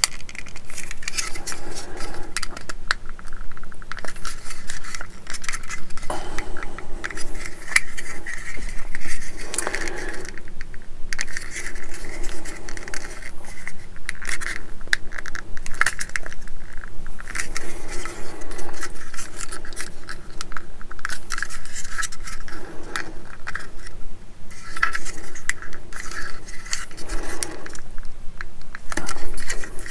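Small plastic model-kit parts and hand tools being handled on a workbench: repeated light clicks, taps and scrapes as pieces are pressed together and put down.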